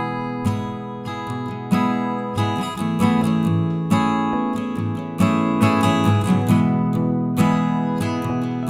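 Background music: a strummed guitar playing chords at a steady pace.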